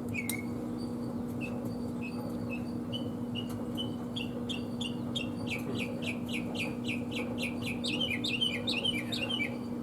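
A bird singing: a run of short, high chirps that start slowly and speed up into a quick trill near the end, over a steady low hum.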